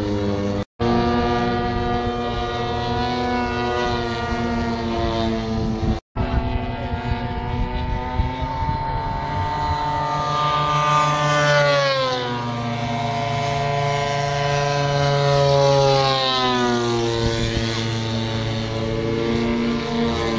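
Radio-controlled model airplane flying past, its motor and propeller making a steady, high buzz. The pitch falls twice in the second half as the plane passes close by.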